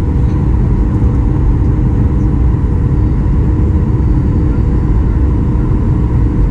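Cabin noise inside a Boeing 737 MAX 8 on its approach descent: a loud, steady rumble of airflow and the CFM LEAP-1B turbofan engines, heard from a window seat beside the engine. A faint steady hum runs through it.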